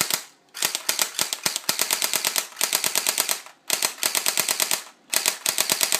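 Battery-powered airsoft M4A1 rifle firing on full auto in bursts: a brief one, then four longer ones with short pauses between them. Each burst is a rapid, even clatter of about ten shots a second.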